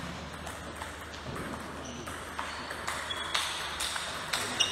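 Table tennis rally: the celluloid-type plastic ball clicking off the bats and the table in a series of sharp hits, about two a second, louder in the second half.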